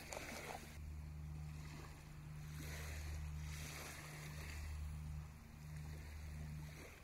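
Wind rumbling on the microphone, with small waves washing softly on a sandy shore that swell and fade every second or two.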